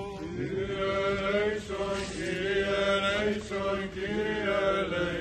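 Greek Orthodox Byzantine chant sung by men's voices: a melody in long held notes that bend from pitch to pitch over a steady low held note beneath.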